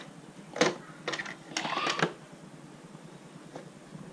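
Screw-down lid of a plastic waterproof battery box being fastened by hand: a few sharp plastic clicks and a brief rising scraping creak, all within the first two seconds.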